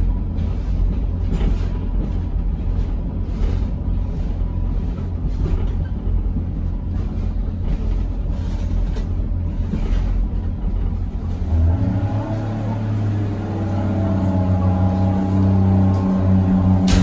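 Cabin noise of a moving Pacer railbus: a steady low rumble from the underfloor diesel and the wheels on the track, with faint clicks roughly every second. About twelve seconds in, the rumble gives way to a steadier humming engine note as the unit slows into a station.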